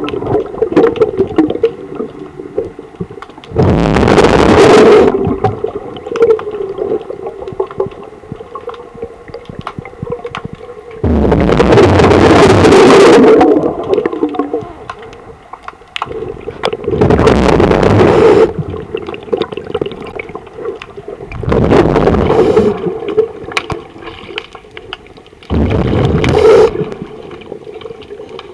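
Underwater recording of a diver's exhaled bubbles rushing past the microphone five times, roughly every five seconds, with a steady low hum between the breaths.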